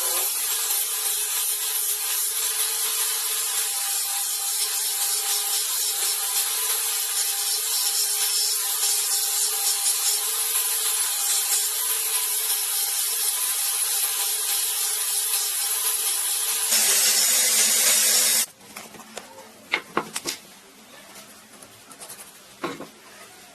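A power tool running steadily against wood with a grinding hiss. It grows harsher and louder about 17 seconds in and cuts off suddenly a second and a half later, followed by a few light knocks.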